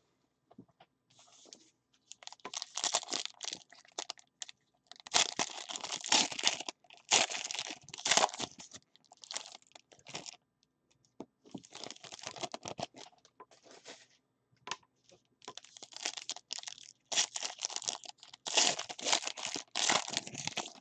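Football trading-card pack wrappers being torn open and crinkled by hand, in repeated irregular bursts of tearing and rustling with short pauses between.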